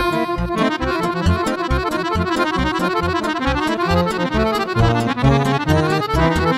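Accordion playing a fast lăutărească melody in quick, ornamented runs, over a steady pulsing bass accompaniment.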